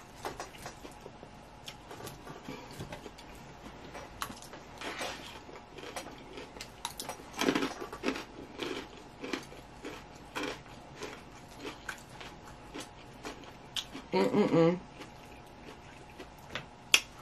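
Close-up chewing and crunching of a lettuce salad, with light clicks and scrapes of a plastic fork on a paper plate. A short hummed 'mm' comes about fourteen seconds in, and a sharp click comes near the end.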